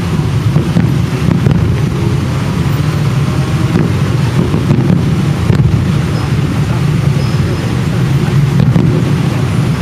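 Fireworks display: a continuous low rumble of overlapping shell bursts, with a few faint sharp cracks.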